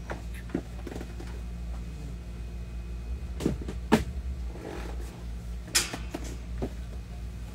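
A scattering of short knocks and clunks as things are handled, the loudest three about three and a half, four and six seconds in, over a steady low hum.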